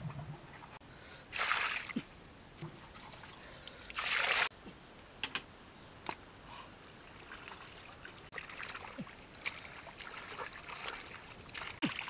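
Water splashing and trickling as skinned frogs are rinsed in half of a broken pot, with two short, loud rushes of water in the first half and small knocks and drips between.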